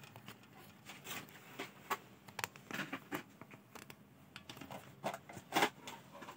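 Items being handled and shifted behind a counter: an irregular run of light clicks, scrapes and rustles, as of boxes and plastic packaging being moved about, with a few sharper knocks about two seconds in and near the end.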